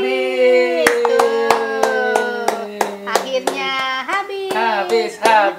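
A sung melody of long held notes. From about a second in, a steady beat of sharp clicks, about three a second, runs under it.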